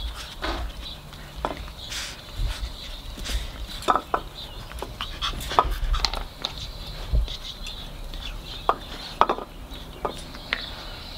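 Puppies jostling around a stainless-steel water bowl and a plate on a concrete floor: irregular light clicks, knocks and clinks, a few of them ringing briefly.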